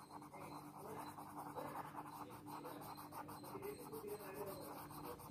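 Cotton bud rubbed quickly back and forth over pencil shading on paper, blending the graphite: a rapid, even scratchy rubbing of many short strokes.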